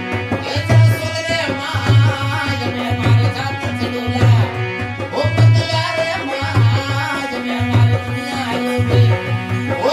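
Rajasthani devotional bhajan: a singer's wavering melody over hand-drum accompaniment, with a deep drum stroke about once a second.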